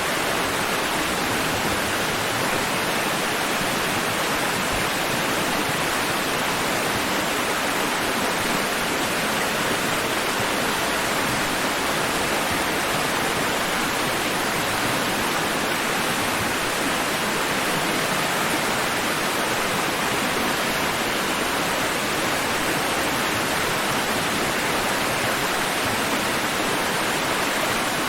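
Steady, even rush of water noise, constant in level with no rise and fall of separate waves.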